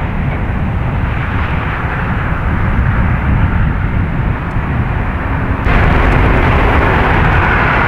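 Jet airliner engines: a steady, loud roar with hiss, which suddenly gets louder and brighter about two-thirds of the way in.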